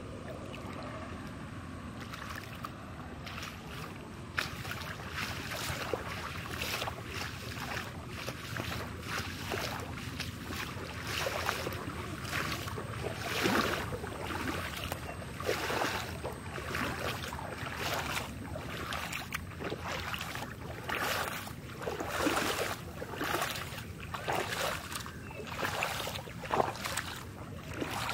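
Water splashing over and over, about once a second, starting a few seconds in, over a steady rushing background.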